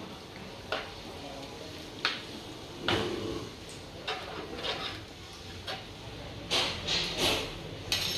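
Kitchen handling sounds at a pot of fish curry on the stove: about a dozen short, irregular knocks and scrapes over a low steady background as a hand works ingredients into the curry.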